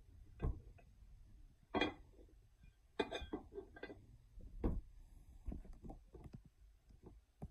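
Irregular light clicks and knocks of handling: aluminium AR-15 receivers being shifted on a cloth-covered table, with a few louder knocks about two, three and four and a half seconds in.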